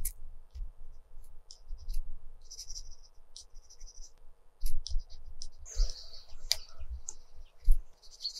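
Coloured pencil scratching on textured watercolour paper in short, quick strokes, with a few sharp clicks and soft low bumps.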